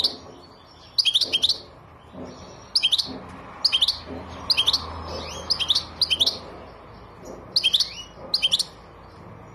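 European goldfinch calling in short bursts of sharp, high twittering notes, about one burst a second, some notes sweeping downward.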